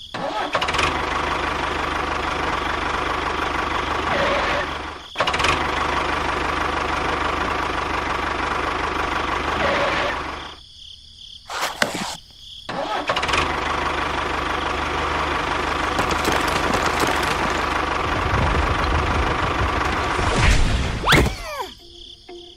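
An engine running steadily in long stretches, cutting off abruptly twice, with short sharp clicks in the gaps.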